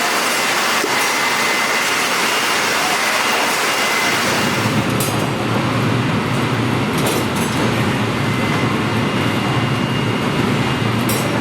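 Steady machinery noise running loudly, with a deeper hum joining about four and a half seconds in and a few short clicks.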